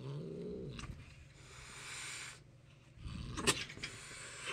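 A feral cat growling with a short rising yowl, then hissing twice, the second hiss ending in a sharp spit. It is angry at being touched.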